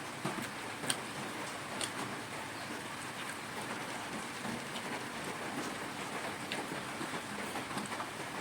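Steady rain falling, with occasional sharp drips or taps standing out above the even hiss of the downpour.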